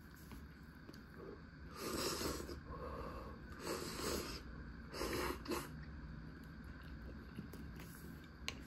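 Spicy ramen noodles slurped three times, each slurp a breathy rush of air about half a second to a second long, with a light click near the end.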